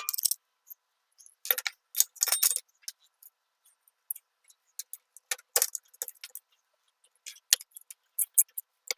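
Small metal hardware and tools clinking and clicking in short, irregular bursts, a few louder clinks ringing briefly: bolt, washers, lock nut and pin being handled and fitted at a bike rack's pivot joint.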